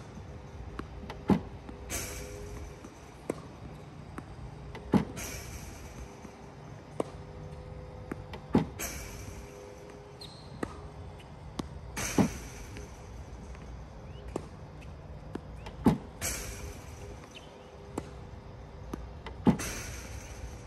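Battery-powered Tennis Tutor ProLite ball machine firing tennis balls at a steady feed rate. There are six sharp launch pops about three and a half seconds apart, each followed by a brief hiss, over a faint steady motor hum. Fainter ball hits come between the launches.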